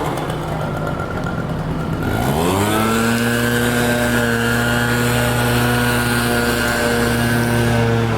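A small engine revs up about two seconds in and then holds at a steady high speed, over a lower, steady engine hum.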